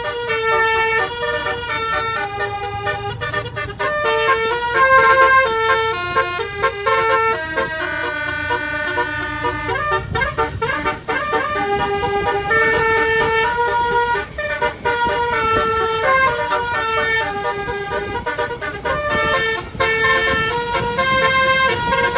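Bus telolet horn playing a long melody of stepped, held notes, over the low rumble of a vehicle engine.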